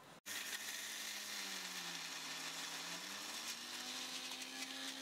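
Electric mixer grinder with a steel jar running steadily, coarsely grinding soaked lentils, rice and dried red chillies into batter. It starts abruptly about a quarter second in, and its motor hum wavers in pitch as it works.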